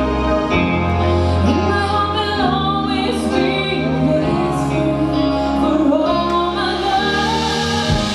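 A woman singing a slow ballad live with a backing band, her voice carrying the melody over sustained chords and a steady bass line.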